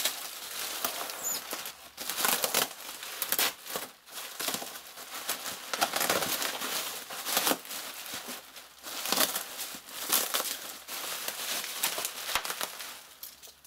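Plastic bubble wrap crinkling and rustling as it is cut with a box cutter and pulled off by hand, in irregular bursts that die down near the end.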